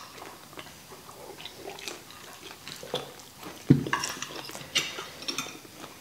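Quiet eating sounds: chewing, and a spoon and fork clicking lightly against plates. There is one louder knock a little under four seconds in.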